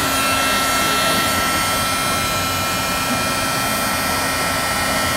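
Embossing heat gun blowing steadily over a board to melt embossing powder, its fan motor giving a constant rushing sound with a steady whine.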